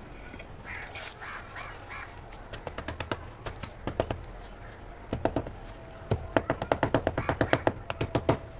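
Sand-cement blocks being tapped and crumbled: runs of sharp, crisp taps and cracks, a few to about eight a second, growing denser and louder toward the end. A few short calls, like a bird's, sound early on.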